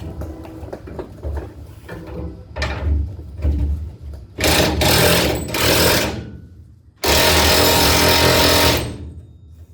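A power tool, likely an impact wrench, running in short bursts on the truck's bolts. There is a rapid rattle, then two loud runs of about two seconds each, the second stopping abruptly near the end.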